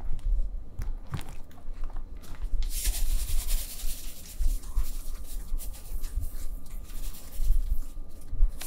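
A few light knocks as peeled eggplants are pressed down in a plastic tub of water, then salt pouring from a canister's spout onto them: a fine hiss that starts about three seconds in and fades away over the next few seconds.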